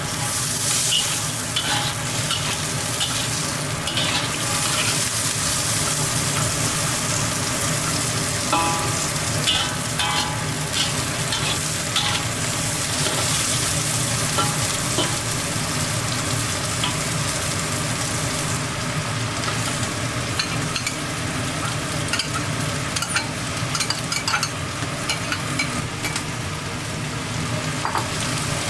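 Food sizzling steadily in a hot pan while it is stirred, with short clicks and scrapes of a cooking utensil against the pan about a third of the way in and now and then after.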